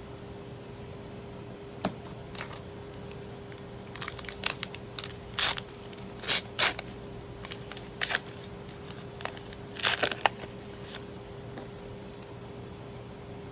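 Trading-card booster pack wrapper being torn open and crinkled by hand: scattered crackling crinkles, thickest from about four to eleven seconds in.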